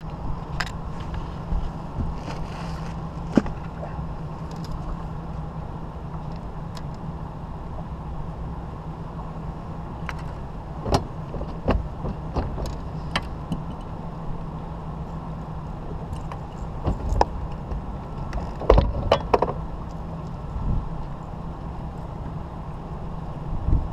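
Steady low rumble aboard a fishing boat on the water, with scattered knocks and clicks of gear being handled in the boat; a cluster of louder knocks comes about 19 seconds in.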